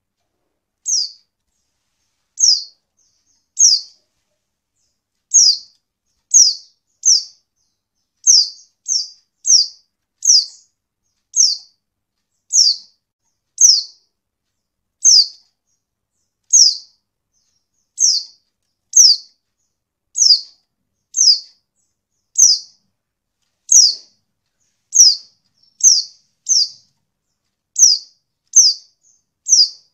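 Female white-eye (pleci) giving short, high chirps that slide downward, about one a second, some coming in quick pairs.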